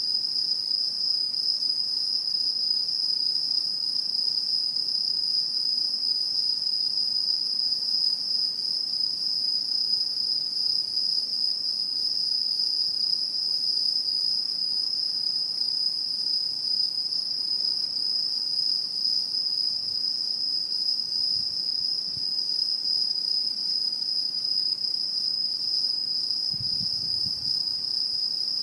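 Autumn insects calling in a steady, unbroken high-pitched chorus.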